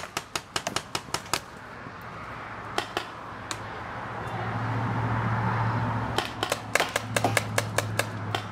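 Paintball markers firing in quick strings of sharp pops, a rapid volley at the start and another from about six seconds in, with a few single shots between. A steady rushing noise swells and fades in the middle.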